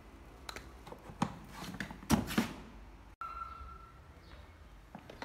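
Hard plastic power-tool carrying case being handled and moved about on cardboard: a few scattered knocks, with two louder thumps about two seconds in. Just after three seconds the sound cuts out for an instant, followed by a short steady tone lasting under a second.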